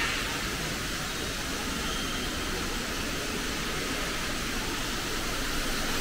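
Steady, even hiss of background noise in the aviary, with a faint short high chirp about two seconds in.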